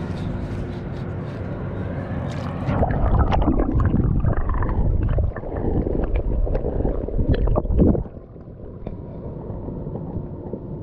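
Water sloshing and splashing close by for about five seconds, starting about three seconds in, as a caught fish is released back into the river. A steady rushing noise runs underneath.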